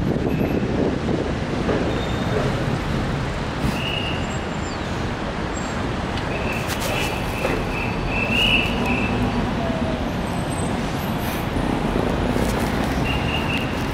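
Steady city road traffic, cars and buses running over the bridge and riverside road, with a few short high chirps about halfway through.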